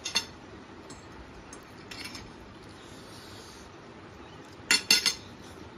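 Metal forks and spoons clinking on plates: one clink at the start, a fainter one about two seconds in, and a quick run of four clinks near the end.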